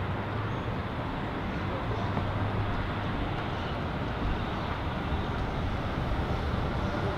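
Z3-class tram rolling past on its rails, heard over steady road traffic. A low hum runs under an even wash of traffic noise, with no sharp knocks or squeals.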